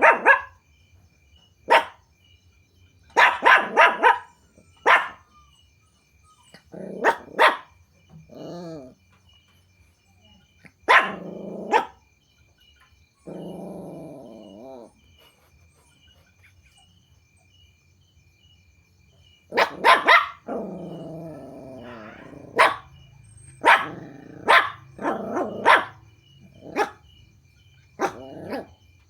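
Puppies barking in short bursts of several sharp barks, with a few longer, drawn-out whining cries between the bursts.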